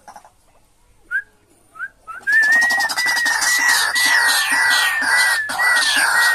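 White-breasted waterhen calling: two short rising notes, then from about two seconds in a loud, harsh, repeated calling run of about two notes a second.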